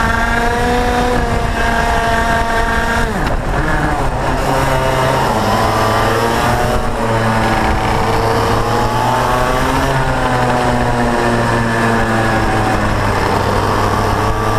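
IAME X30 125cc two-stroke kart engine at racing revs, heard onboard. Its pitch falls sharply about three seconds in, then climbs again and rises and falls several more times through the corners.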